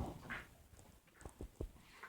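A dog making faint breathy snuffling noises, with a few light taps about a second in.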